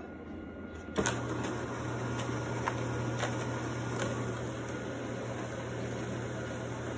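Steady low mechanical hum with hiss from a running household machine, starting abruptly about a second in, with a few faint clicks.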